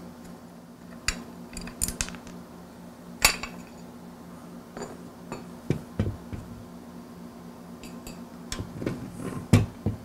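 Metal parts of the Pancor Jackhammer shotgun clinking and knocking as its side plates are unscrewed, lifted off and set down on the wooden bench. There are a dozen or so scattered clicks and clanks, the loudest about three seconds in and again just before the end.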